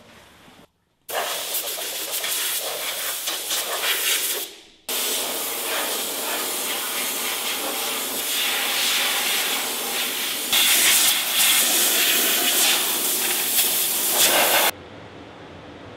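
Compressed-air blow guns hissing as they blow rinse water off a bare steel chassis to dry it. The hiss starts suddenly about a second in, breaks off briefly just before five seconds, gets louder near the ten-second mark and cuts off suddenly near the end.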